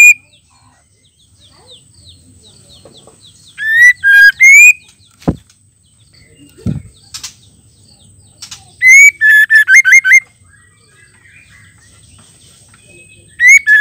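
White-rumped shama calling in three short bursts of quick, rising whistled notes, about four, nine and thirteen seconds in. Two dull knocks come between the first and second bursts.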